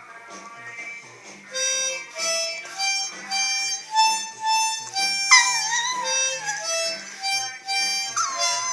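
Harmonica playing a tune of short held notes while a dog howls along with it. A long, wavering howl that falls in pitch comes about halfway through, and another starts near the end.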